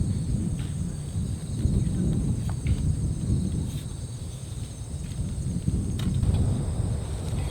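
Strong seaside wind gusting against the microphone: a deep, uneven rumble that swells and eases.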